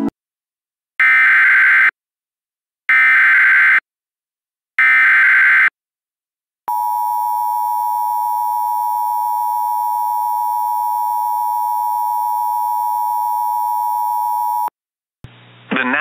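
Emergency Alert System SAME header: three short bursts of data tones, each just under a second, about a second apart. Then the EAS attention signal, a steady two-tone, sounds for about eight seconds and cuts off abruptly.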